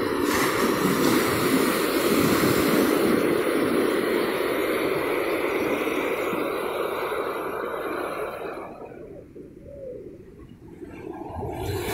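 Rough ocean surf: waves breaking and foaming whitewater rushing up the shore in a steady wash of noise. It fades for about two seconds near the end, then swells again.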